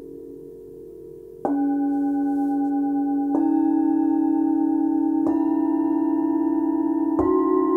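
Hand-forged Tibetan singing bowls from a seven-note set struck one after another with a padded mallet: four strikes about two seconds apart. Each bowl rings a step higher in pitch than the one before, and the earlier bowls keep ringing under it, building a sustained chord.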